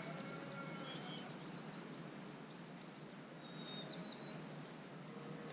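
Quiet outdoor ambience beside a small creek: a steady soft hiss with a few faint, short bird chirps, one early and one about four seconds in.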